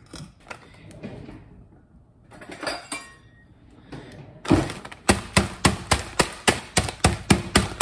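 Metal meat tenderizer mallet pounding a bag of frozen cauliflower rice on a stone countertop, breaking up the frozen clumps. The blows start a little past halfway and come fast and even, about four a second.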